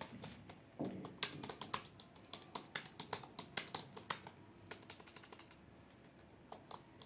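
Typing on a computer keyboard: a fast, uneven run of key clicks that thins out about four seconds in, pauses briefly, then a few more keystrokes near the end.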